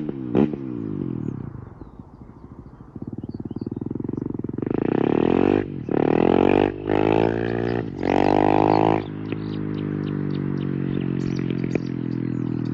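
KTM 690 SMC R's single-cylinder engine through an FMF 4.1 exhaust with no dB-killer. It drops to a low note, builds, then runs loud in four long high-rev pulls with the pitch climbing in each and a short dip between them. It then settles into a steady lower drone with a few faint crackles near the end.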